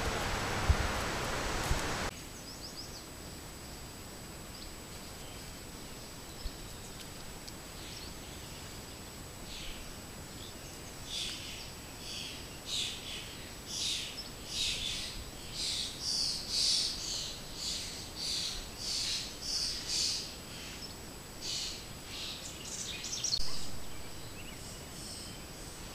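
A songbird singing short high phrases over and over, about one a second, through the middle and latter part, with the loudest phrase near the end, over a faint steady hiss. For the first two seconds a loud rushing noise with a couple of clicks holds the sound, then cuts off abruptly.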